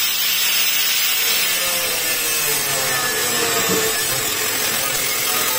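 Angle grinder with a thin cut-off disc running steadily while it cuts through grade 202 stainless steel sheet.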